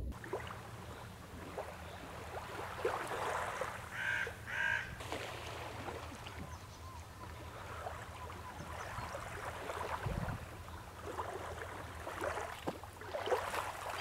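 Calm sea water splashing and lapping gently around a swimmer, with a bird calling twice in quick succession about four seconds in.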